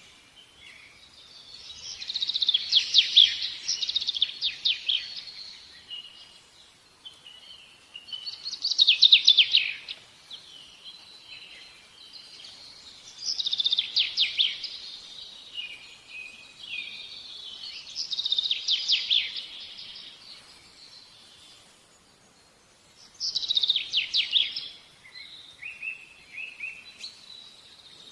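A songbird singing: phrases of rapid high chirping notes, about one every five seconds, with short quieter notes between.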